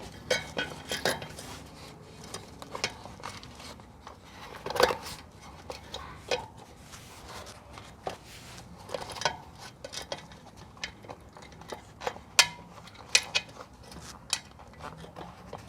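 Irregular clicks, taps and light knocks of a small bicycle wheel, its rim and a rubber inner tube being handled as the tube's valve is pushed into the rim hole and the tube fitted.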